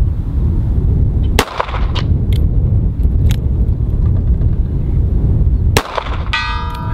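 Two shots from a Ruger LCR X .357 Magnum pocket revolver, about four seconds apart, over a steady low rumble. Near the end a steel target rings out after the second shot: a hit at 100 yards.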